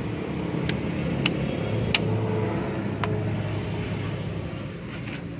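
Four sharp metallic clicks in the first three seconds as brake-shoe springs and hardware are worked into place on a drum brake backing plate. Under them is a steady low motor hum.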